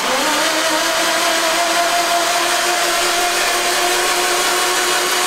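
Starter motor cranking a Subaru WRX STI's flat-four boxer engine with the spark plugs removed and fuel and spark disabled: a steady whine that rises briefly as it spins up, then runs even. With the plug holes open there is no compression, so it turns over without the usual puffing, as the flooded engine is cranked to push out water and circulate fresh oil.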